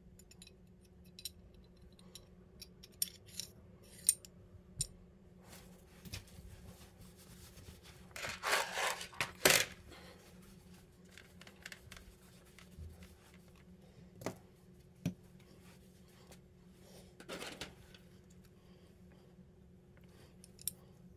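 Small metal pistol parts being handled on a rubber gun mat: scattered light clicks and clinks, with a louder scraping rustle about eight to ten seconds in that ends in a sharp click, and a few single clicks later.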